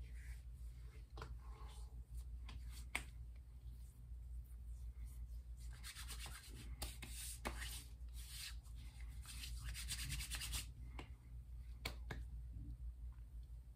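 Hands rubbing aftershave balm between the palms and over the face and neck, a soft rapid swishing. It comes in two spells of a second or two each in the middle, with a few faint clicks here and there.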